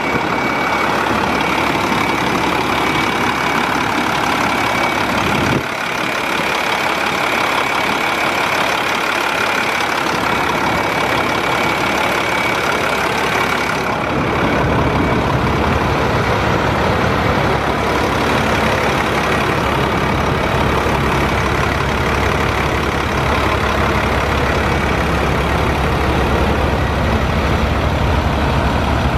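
International DT530 inline-six diesel idling steadily, growing deeper and louder from about 14 seconds in.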